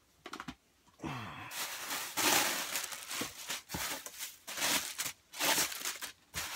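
Rustling and crinkling of packaging in irregular bursts as hands rummage through a package of discs.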